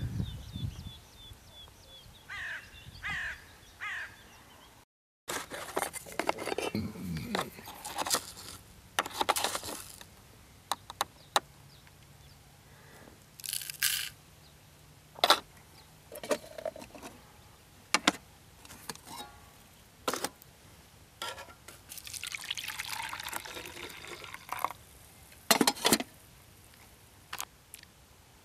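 Breakfast being prepared at camp: short clicks and knocks of utensils and containers being handled, with liquid poured now and then. Birds call in the first few seconds.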